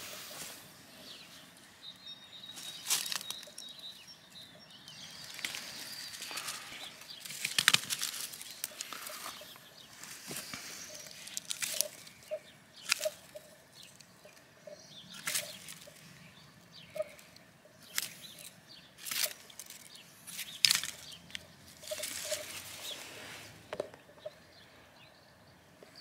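Small knife cutting and trimming an olive scion and hands working the grafted stump: irregular short clicks and scraping rustles.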